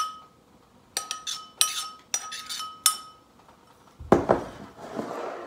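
Metal spoon clinking and tapping against a ceramic bowl while scraping seasoned chickpeas out of it, about eight ringing clinks over the first three seconds. About four seconds in, a louder rough scraping rub.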